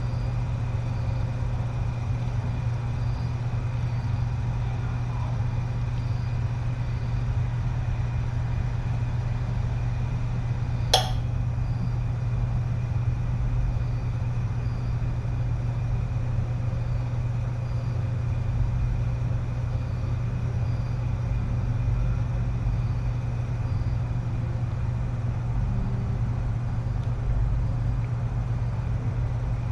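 Steady low hum over an even background hiss, with one sharp click about eleven seconds in.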